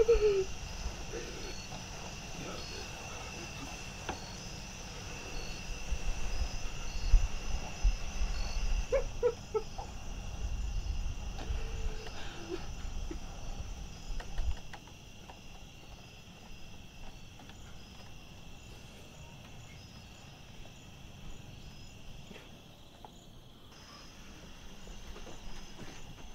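Night ambience of crickets chirping steadily in high, evenly pulsing tones. A low rumble rises under them between about six and fourteen seconds in.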